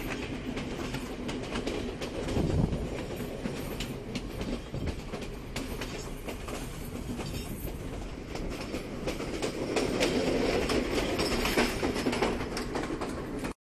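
Sri Lankan passenger train on the Badulla line running steadily, heard through an open carriage window: a continuous rumble of the carriage with the wheels clacking over the rail joints.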